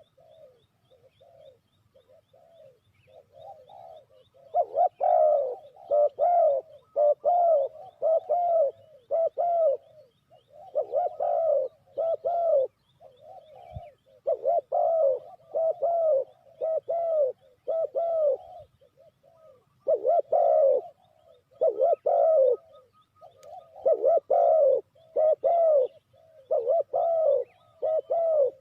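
Spotted dove cooing, phrase after phrase of low, rounded coo notes. The calls are faint at first and loud from about four seconds in.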